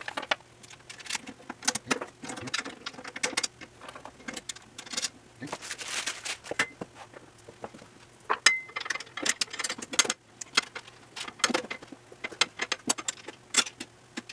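Irregular clicks and clinks of loose nuts, bolts and small steel hardware being handled and fitted into a steel sander stand during assembly.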